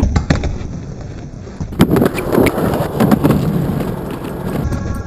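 Skateboard wheels rolling with a steady rumble, broken by several sharp clacks of the board popping and landing.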